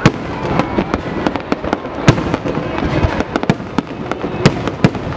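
Aerial fireworks display: a rapid, irregular volley of shell bursts and crackles, with three louder bangs standing out, near the start, about two seconds in and past four seconds.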